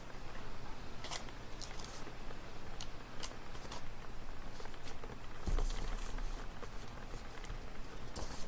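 Library ambience: steady room hum with scattered small clicks and rustles, and a louder low thump about five and a half seconds in.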